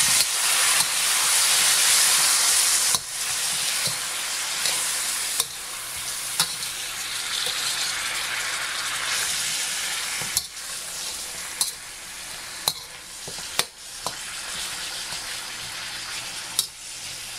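Chicken pieces and garlic sizzling in hot vegetable oil in a wok, stirred with a metal spatula that clacks and scrapes against the pan. The sizzle is loudest for about the first three seconds, then drops back, with sharp spatula clacks every second or so in the second half.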